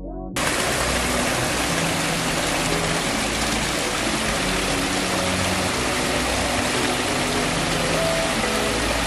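Water splashing down a small cascade over mossy boulders: a steady, loud rush of falling water that begins abruptly just after the start.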